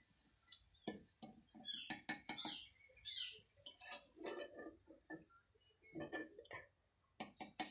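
A wire-mesh skimmer clinking and scraping against a black kadai as fried carrot chips are scooped out of the oil, in light, irregular knocks.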